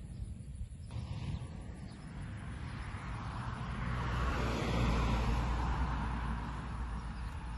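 A car passing on the road, its engine and tyre noise swelling to a peak about five seconds in and then fading away.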